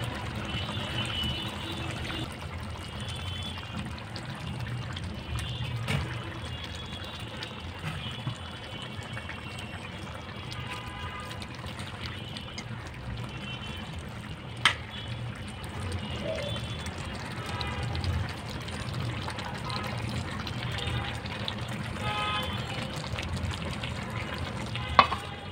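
Chicken curry simmering in a pan with a steady watery bubbling, stirred with a metal spatula that clicks sharply against the pan three times.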